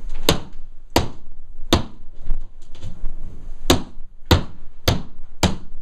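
Hammer blows smashing into drywall (sheetrock): three strikes about two-thirds of a second apart, a pause, then four more in quick succession.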